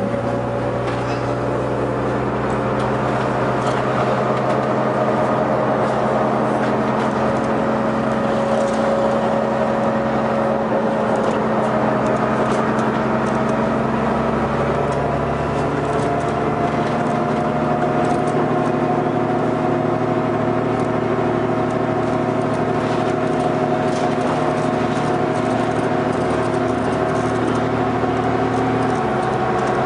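New Flyer D40LF transit bus's diesel engine running steadily, its note rising slowly over the second half.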